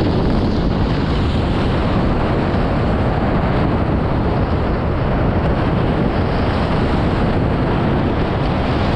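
Strong wind buffeting the on-board microphone and water rushing past the hulls of a Nacra 20 beach catamaran sailing fast in a big breeze. The sound is steady, loud and unbroken.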